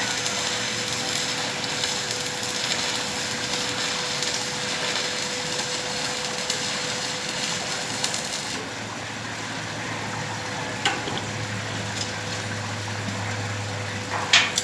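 Electric arc welding: the arc crackles with a steady hiss and cuts off about two-thirds of the way through. A low steady hum and a couple of sharp clicks follow.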